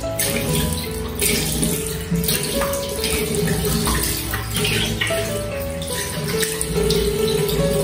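Water running from a tap and splashing during a kitten bath, with irregular surges of splashing, over background music with a simple melody.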